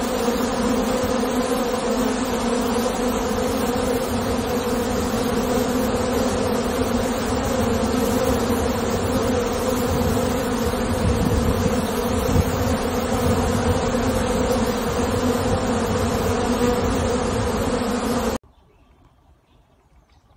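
Many honey bees buzzing at a hive entrance, a steady, loud hum of wingbeats. The hum cuts off suddenly about two seconds before the end, leaving only faint sound.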